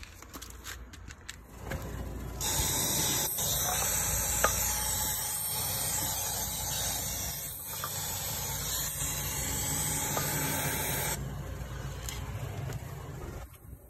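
Raid Ant & Roach aerosol can spraying insecticide in one steady hiss of about nine seconds, starting a couple of seconds in and cutting off near the end.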